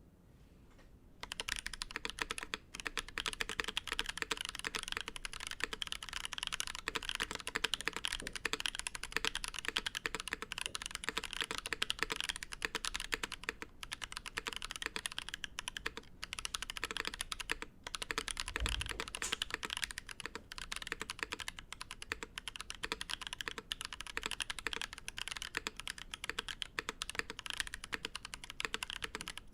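Continuous typing on a Bacca60 mechanical keyboard in a polycarbonate case, starting about a second in. There is one dull low bump about two-thirds of the way through.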